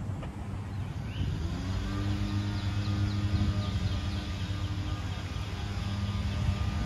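Steady low rumble of traffic, with an engine drone that comes in about a second and a half in and holds steady, and birds chirping over it.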